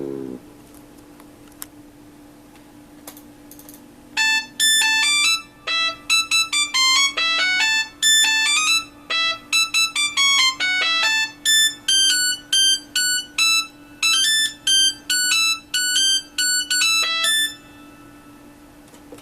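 Nokia 3585 ringtone played as MIDI through a Sound Blaster Live! sound card with the Mobile60 soundfont: a quick melody of short, bright synth notes, one at a time, starting about four seconds in and stopping shortly before the end. The previous tune cuts off right at the start, and a steady low hum runs underneath.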